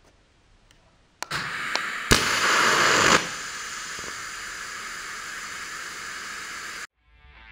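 TIG welding arc on a black-coded 1.6 mm tungsten electrode at 20 A DC, struck by a Fronius MagicWave's high-frequency ignition: after about a second of silence a sharp crackle, then the arc hisses with a faint high whistle, loudest for about a second, and runs on at a steady lower hiss until it cuts off abruptly. At this low current the black electrode's arc flickers and is unstable.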